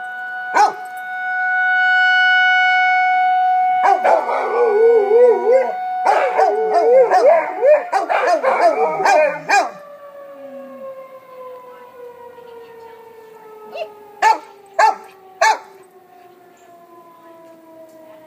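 Tornado warning siren sounding a steady tone while American bulldogs howl along in wavering howls. About ten seconds in the howling stops and the siren winds down, falling slowly in pitch, and a dog barks three times.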